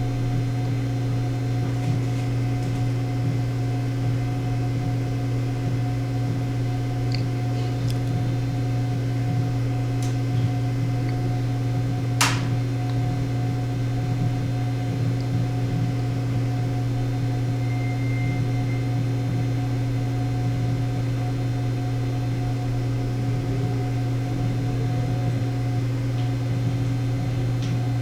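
Steady low mechanical hum with a few faint clicks, and one sharper click about twelve seconds in.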